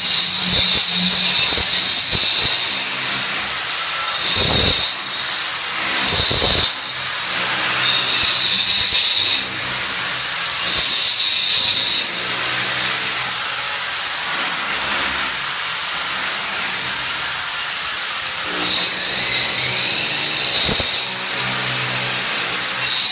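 Handheld wall-chasing saw with 114 mm segmented diamond blades cutting a groove into a masonry wall: the motor runs steadily, and a harsher, higher grinding comes and goes in stretches of a second or two as the blades bite into the wall.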